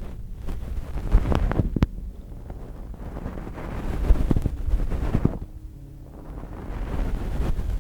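Close-up ear-cleaning sounds on a binaural microphone's ear: rubbing and scratching that swells and fades about every three seconds, with a few sharp crackles about a second in.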